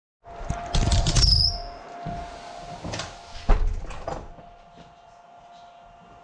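A burst of clattering knocks with a short high squeak, then a single sharp knock and a few lighter ones, over a faint steady tone.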